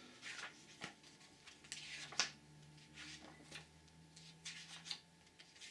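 Pages of a comic book being turned and handled, the paper rustling in several short swishes, the sharpest a little over two seconds in.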